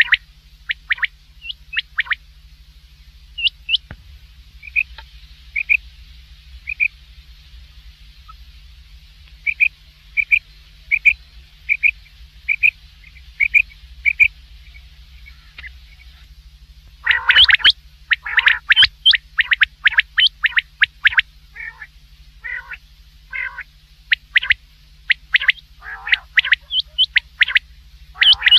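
Recorded quail calls. First comes an evenly spaced series of short, high chirps, then about halfway through come loud, rapid clusters of sharp calls. A faint low hum runs underneath.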